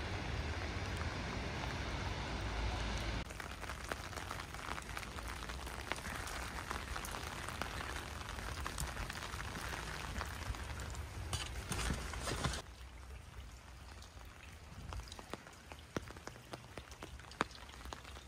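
Steady rain, with many separate drops tapping on hard surfaces close by. The sound drops in level about three seconds in and again about twelve seconds in.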